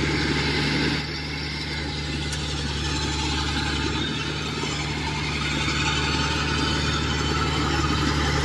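Engine of a tractor hauling a trailer loaded with rice sacks, running steadily and growing gradually louder as it draws closer, with a combine harvester's engine running alongside.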